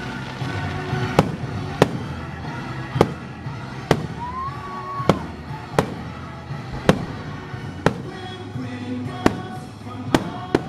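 Fireworks bursting, about one bang a second, over the show's soundtrack music.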